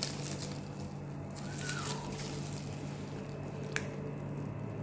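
Rustling and handling of packaging as an air rifle is unwrapped from its box, with one sharp click about three and a half seconds in, over a steady low hum.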